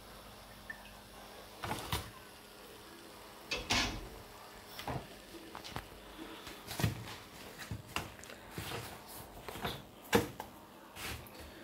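Irregular knocks, light clatter and rustling as crisp fried samosas are handled and set down on a paper-towel-lined tray, the loudest knock near the end.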